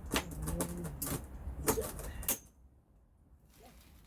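Small metal assembly hardware, washers and the like, clinking and clicking as it is handled, with several sharp clicks in the first two and a half seconds.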